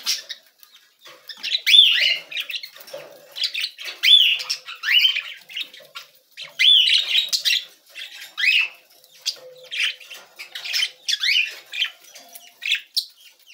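Young budgerigars chirping and squawking in short clusters about once a second, each call a sharp rising-and-falling note.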